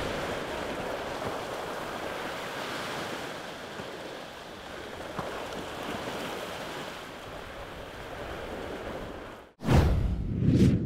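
Ocean surf and wind rushing over the microphone as a steady noise. Near the end it cuts out for an instant, and a loud whoosh sound effect follows.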